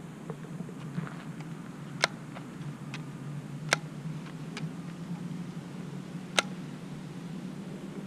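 Pump BB gun giving three sharp clicks, about two seconds apart, over a steady low hum.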